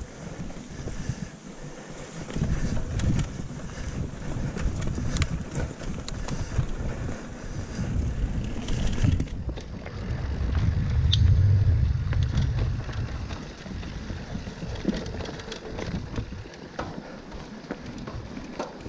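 Mountain bike riding fast over a leaf-covered dirt trail: tyres rolling on dirt, scattered rattles and clicks from the bike, and wind buffeting the action camera's microphone, heaviest about ten to thirteen seconds in.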